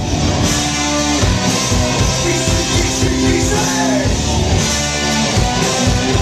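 Live rock band playing loud, with electric guitar over a steady drum beat.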